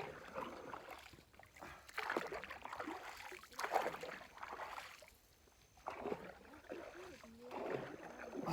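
Water splashing and sloshing around a small boat as it is brought in to the landing, in irregular swells a second or two apart, with no engine note. Faint voices come in near the end.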